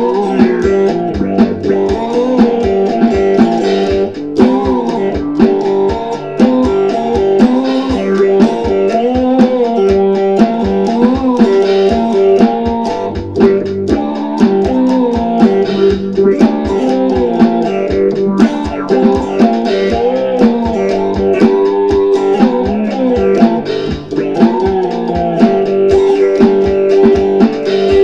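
Electric cigar box guitar played through an auto-wah envelope filter, a funk riff whose notes glide and sweep in tone as a slide moves along the neck.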